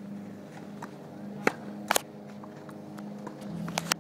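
Sharp pops of a tennis racket striking balls on forehands, with the balls bouncing on a hard court: one about a second and a half in, a quick pair near two seconds, and another pair near the end, over a low steady background hum.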